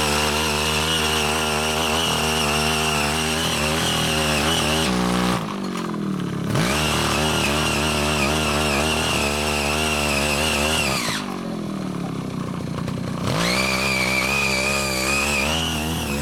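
The 5 hp engine of a CY80 mini rotary tiller running at high speed as its tines churn the orchard soil. Twice, about five and about eleven seconds in, it is throttled back to a lower, quieter idle for a second or two, then revved back up.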